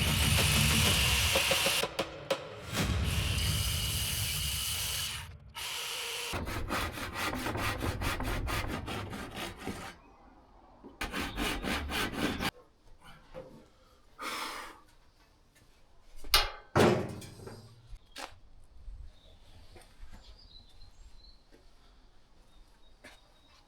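A handheld power tool working on metal in several loud bursts, some with a rapid regular chatter, stopping about halfway through. A few sharp knocks and quieter handling of metal parts follow.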